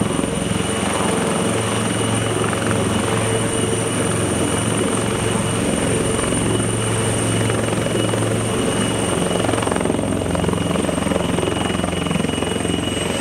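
A Westland Lynx AH9A twin-turbine helicopter hovering low and settling onto the ground, with a steady rotor beat under a high, continuous turbine whine. The whine dips slightly near the end.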